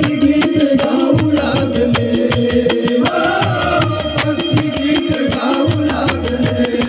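Instrumental devotional folk music with a fast, steady percussion beat under sustained melody lines.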